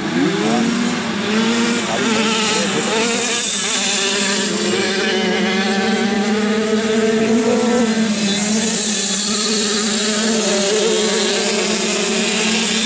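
Several classic 50cc two-stroke racing motorcycles running at high revs together. Their engine notes overlap at different pitches and rise and fall slightly as the bikes race around the track.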